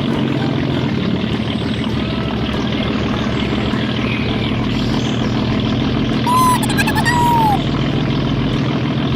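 A small engine running steadily, with a couple of short, high whistle-like calls about six to seven seconds in.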